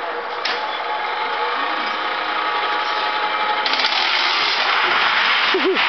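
Homemade backyard roller coaster running: a steady mechanical whirr with a faint whine as the car climbs the steel lift, then a louder, even rushing noise from about three and a half seconds in as the car crests and its wheels start rolling along the track.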